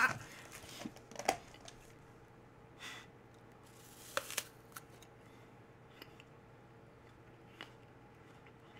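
A crisp, crunching bite into a Granny Smith apple about four seconds in, heard as two quick crunches, with a few faint clicks of chewing and mouth noise before and after.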